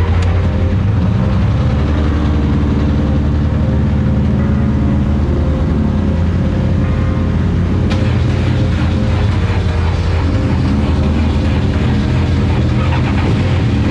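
Motorcycle engine running steadily under way, its note shifting slightly a couple of times.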